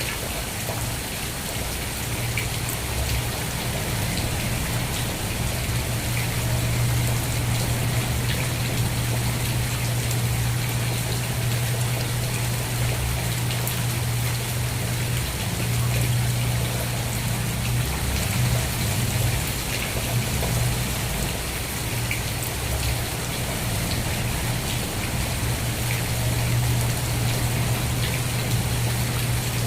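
Steady rain with fine pattering drops, over a constant low hum.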